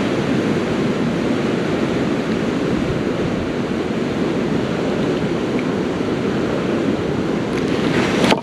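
Creek water rushing steadily, a continuous even hiss of flowing current, with a brief louder noise at the very end.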